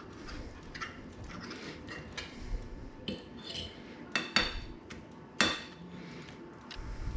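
Cutlery clinking and scraping against dishes: a run of light taps and scrapes, then two sharp ringing clinks about four and five and a half seconds in.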